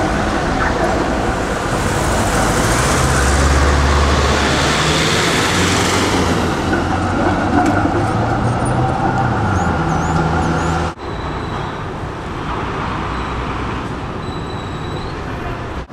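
Melbourne electric tram running past at close range, with a low hum and the rumble of its wheels on the rails. About eleven seconds in the sound cuts abruptly to a quieter, more distant mix of tram and street traffic.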